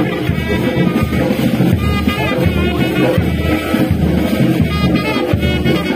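Loud music led by brass instruments, playing on without a break.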